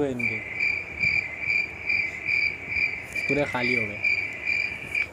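A cricket (the insect) chirping in a steady, even rhythm of about two chirps a second, cutting off suddenly near the end. A brief voice cuts in about three seconds in.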